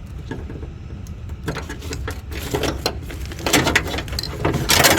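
Clattering and scraping of hard plastic and metal inside a car door as a Honda Element's door lock actuator is worked out of the door cavity, the knocks coming faster and louder, with the loudest scrape near the end, over a steady low hum.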